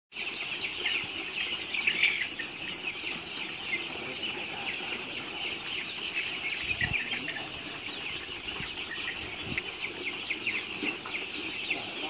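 A large flock of young chicks peeping all at once in a brooder pen. Many short, high peeps overlap without a break.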